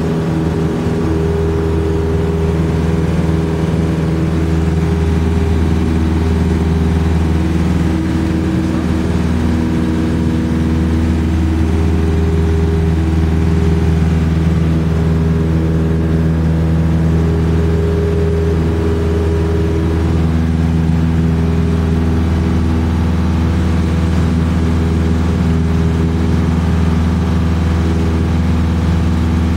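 Cessna 172SP Skyhawk's four-cylinder Lycoming engine and propeller running steadily in the climb after takeoff, a loud, even drone heard inside the cabin.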